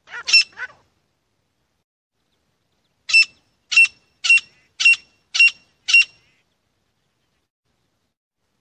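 Grey francolin calling: three quick notes at the start, then after a pause of about two seconds a run of six loud, high-pitched notes, evenly spaced at almost two a second.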